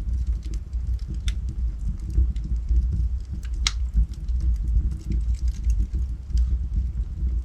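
Wood fire burning in a fireplace: a steady low rumble from the flames with scattered crackles and pops from the burning logs, the sharpest pop about halfway through.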